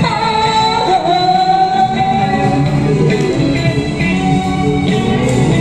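Pop-rock band music between sung lines: a long held note in the first two seconds, then an instrumental passage with guitar over bass and drums.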